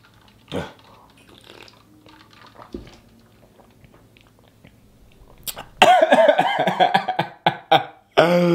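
A man chews quietly for several seconds, then about six seconds in bursts into loud, wavering crying wails: a mock sob over the burn of very spicy fried chicken.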